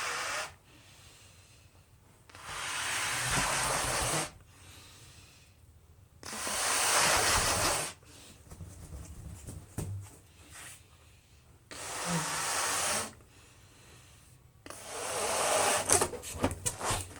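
A person blowing up a rubber balloon: four long, forceful breaths pushed into it, each lasting about one and a half to two seconds, with short pauses between them and a few small crackles near the end.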